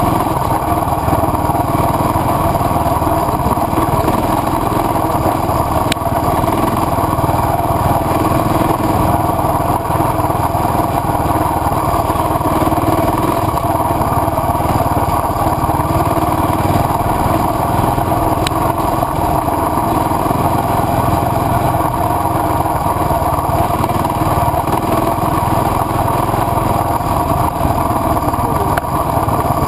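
A KTM adventure motorcycle's engine running steadily under way on a dirt trail, picked up close by a camera mounted on the bike.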